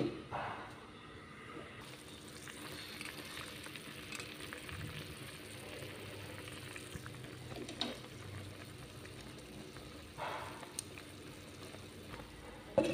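Fish braising liquid boiling hard in a clay pot, a steady bubbling hiss. A sharp knock comes right at the start and another near the end, with a few softer knocks between.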